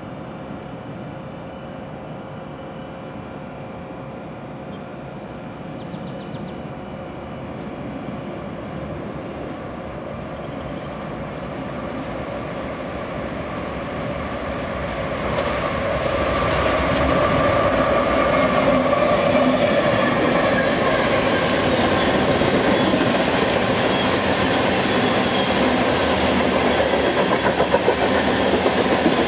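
BNSF coal train approaching behind a GE AC4400CW diesel locomotive, growing steadily louder until the locomotive passes about halfway through. Loaded coal hopper cars then roll by, their wheels running steadily on the rails.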